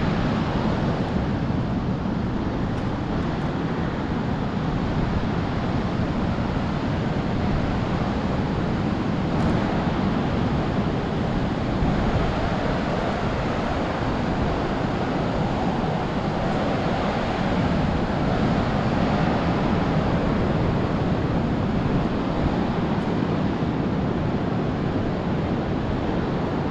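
Steady roar of Pacific surf breaking on the beach, mixed with wind buffeting the microphone.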